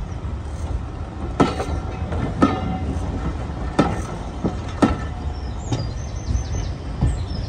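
Heritage railway train rolling slowly, its wheels knocking over rail joints in two pairs of clicks about a second apart over a steady low rumble. Thin high wheel squeal comes in during the second half.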